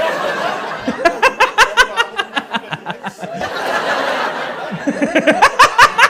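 Laughter in runs of rapid, evenly spaced 'ha-ha' pulses, one run about a second in and another near the end. Steady noise fills the gaps between the runs.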